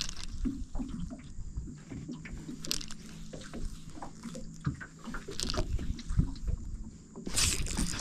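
Handling noise of an Okuma ITX-1000 spinning reel being wound and the rod being worked: scattered small clicks and knocks over a faint low hum. A louder rush of noise comes in near the end.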